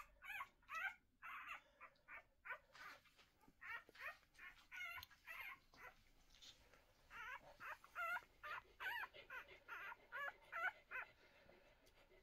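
Newborn whippet puppies squeaking and whimpering: many short, high-pitched, wavering squeaks in quick succession, dying away near the end.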